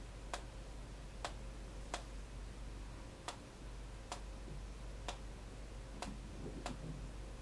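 Computer mouse clicking as a web page is scrolled down: about eight sharp, single clicks, roughly one a second and unevenly spaced.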